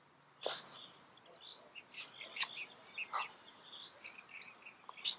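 Wild birds chirping, many short high notes, with a few sharper, louder calls among them.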